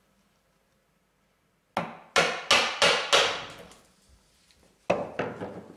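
Mallet blows on a chisel chopping into beech at the gauge line: a quick run of five sharp knocks about two seconds in, then two more near the end.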